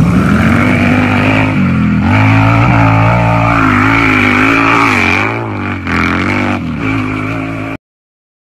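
Small underbone motorcycle engine running, its pitch rising and falling as the throttle changes. It drops in level after about five seconds and cuts off suddenly shortly before the end.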